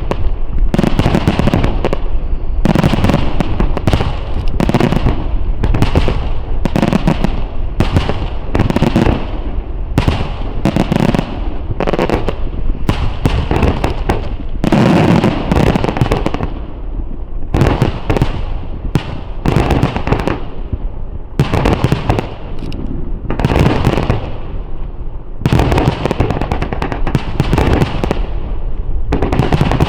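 Starmine fireworks barrage: aerial shells fired in rapid succession, several bangs and booms a second with echoing tails, overlapping into a near-continuous rumble.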